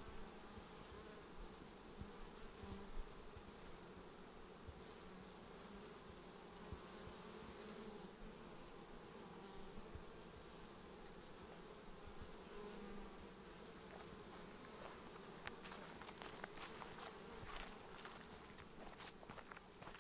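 Bees buzzing steadily, a low continuous hum. From about three-quarters of the way in, footsteps on the path come in at a regular walking pace.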